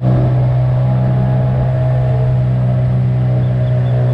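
Small outboard motor on an aluminium tinny running at a steady cruising speed, a loud, even engine note.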